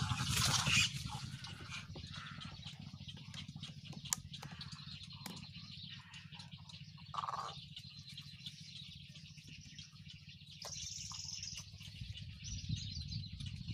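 Outdoor ambience of birds chirping in scattered short calls over a low steady hum, with one short, higher call about eleven seconds in.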